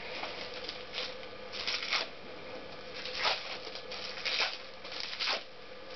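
Plastic bag crinkling and rustling in someone's hands as a part is unwrapped from it, in irregular crackly bursts with four louder crinkles.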